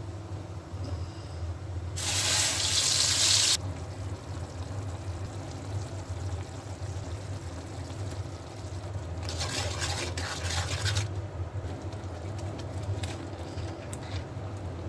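Water running or being poured twice, each time for about a second and a half and stopping abruptly, over a steady low hum.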